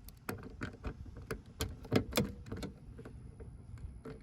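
Hand wrench on the seat belt anchor bolts, a series of irregular metal clicks and knocks as the bolts are checked for tightness.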